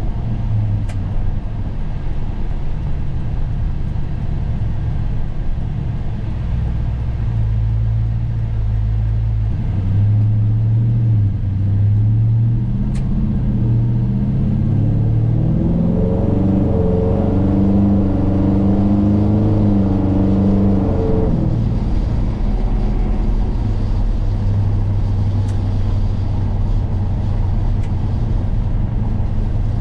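Ford Gen 3 Coyote 5.0 V8 of a 1955 F100 running at a steady cruise, then revving up in a strong rising pull through the middle. The pull drops back abruptly about two-thirds of the way through and the engine settles back to a steady low drone.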